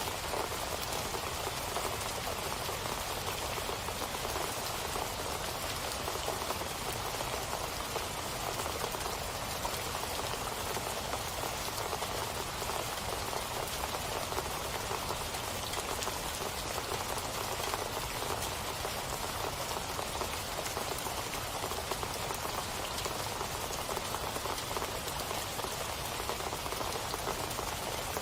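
Steady rain falling on a surface, a constant even patter with no distinct drops or breaks.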